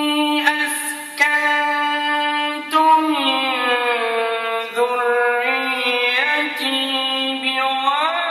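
A male Quran reciter's voice in unaccompanied melodic recitation. It holds long drawn-out notes, slides down in pitch about three seconds in, then moves through ornamented turns and climbs again near the end.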